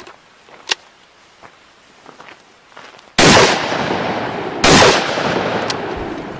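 Two shotgun shots about a second and a half apart, each followed by a long echoing tail. A couple of light clicks from the break-action shotgun being loaded and closed come before them.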